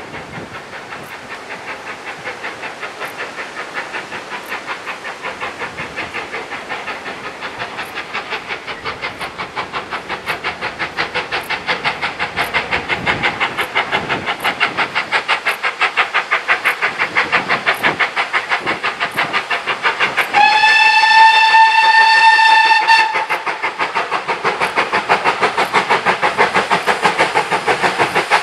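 GWR Hall class 4-6-0 steam locomotive No. 4953 'Pitchford Hall' working hard uphill, its exhaust beating fast and evenly and growing louder as it approaches. Just over twenty seconds in it sounds its whistle once, for about two and a half seconds.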